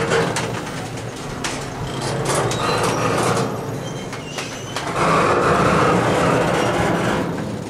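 Double-stack intermodal well cars of a BNSF freight train rolling slowly past close by: steel wheels on rail give a steady rolling noise with clanks, clicks and a few short high squeals, louder for a couple of seconds a little past the middle. The train is slowing to a stop.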